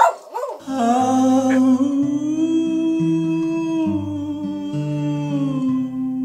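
A short loud burst at the very start, then a man's voice sings one long held note over acoustic guitar, with the low guitar notes changing underneath.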